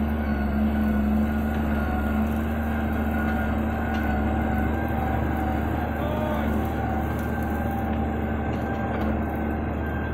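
Valtra 1780 tractor's diesel engine running steadily under load while pulling a disc harrow through soil, a constant drone with a low hum.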